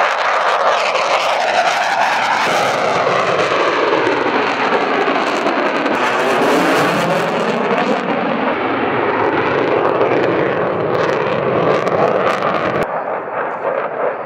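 Dassault Rafale's twin Snecma M88 turbofans at high power, on afterburner, during display passes. The jet noise sweeps and wavers in pitch as the aircraft moves past. The sound changes abruptly near the end.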